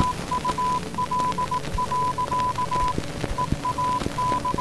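Morse-code-style beeping: a single high tone keyed on and off in short and longer pulses at uneven spacing, over radio-like hiss with scattered crackling clicks.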